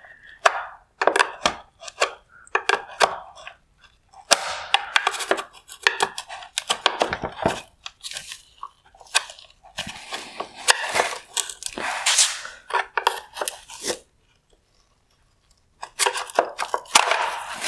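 Flathead screwdriver prying at the plastic mounting tabs of a headlight's wire connector while the connector is pushed in: repeated plastic clicks, scraping and crunching in bursts, with a pause of about two seconds near the end.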